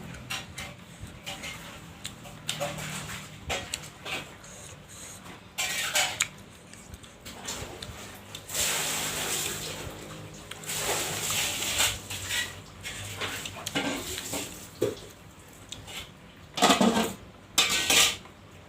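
Close-miked eating of bakso meatball soup: a spoon clinking against the bowl, with chewing and mouth sounds between. Two louder noises come near the end.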